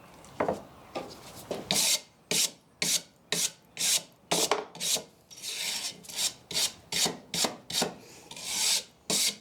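Hand-worked abrasive strokes scraping across wood, about two a second, starting about half a second in, with a few longer strokes among the short ones.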